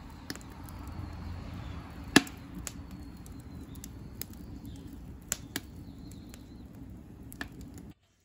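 Wood fire burning with a low rumble and a few sharp pops and cracks from the burning wood, the loudest about two seconds in.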